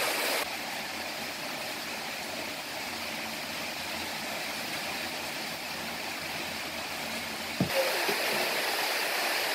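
Steady hiss of background noise, with a couple of short knocks near the end.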